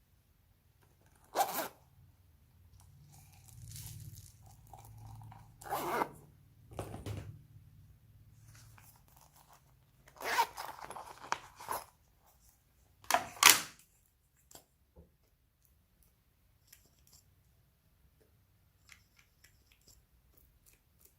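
Slime being worked by hand: four loud, sudden bursts of stretching and tearing over the first two-thirds, with softer squishing between them, then only faint small clicks and pops.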